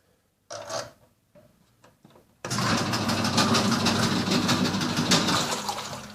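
Speed Queen washing machine making the loud rattling, grinding noise it has developed while washing: it starts abruptly about two and a half seconds in, holds steady, then dies away near the end, leaving a low motor hum.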